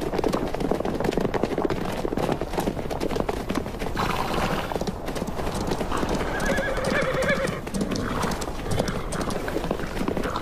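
Hooves of a herd of wild Namib desert horses trotting and galloping over stony desert ground in a dense, continuous clatter. A horse whinnies about four seconds in, and a longer, quavering neigh follows a couple of seconds later.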